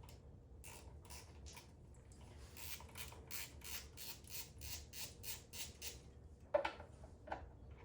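Hand tool scraping and working at the oil filter cover bolts of a Suzuki DR650 engine: a run of short, scratchy strokes, about three or four a second, then a couple of metal clinks near the end.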